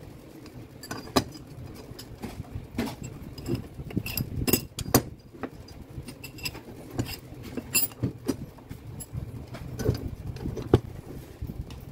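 Irregular metal clicks and clinks as a hex key works the clamp bolt of the steel side handle on a Makita HM1306 demolition hammer and the handle is shifted on its clamp. A few of the clinks are sharper and louder than the rest.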